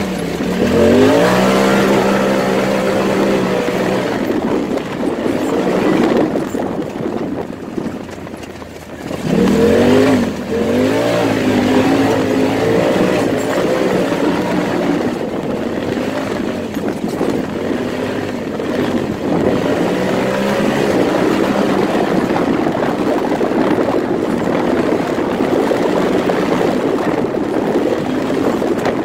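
Turbocharged engine of a Polaris RZR Turbo S side-by-side under hard acceleration on a dirt track. It revs up at the start and holds, eases off briefly around eight seconds, then climbs hard again about ten seconds in and carries on at speed under steady wind and rough-ground noise.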